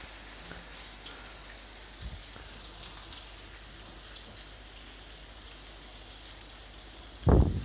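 Dried anchovies frying in hot oil in a wok: a steady sizzle. A loud thump sounds near the end.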